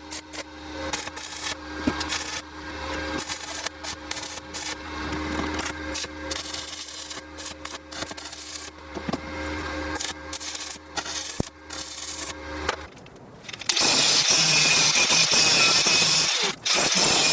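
Hand work on wood: irregular rubbing and scraping strokes. After a short pause a power tool starts and runs loudly and steadily, cutting out briefly once near the end.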